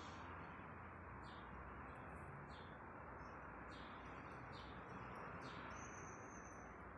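Faint bird chirps, short high calls about once a second, with a thin high whistle held for about a second near the end, over a steady background hiss.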